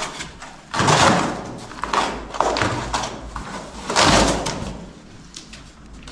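Cardboard packaging being ripped and pulled open by hand, with three loud bursts of tearing and rustling, about one, two and four seconds in, and quieter crinkling between them.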